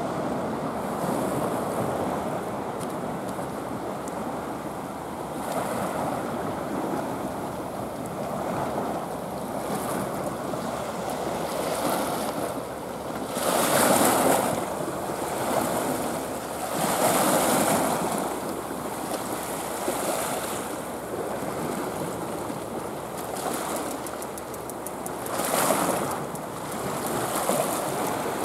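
Sea waves washing and breaking against a rocky shoreline in a steady rush, with louder surges of surf about halfway through, a few seconds after that, and near the end.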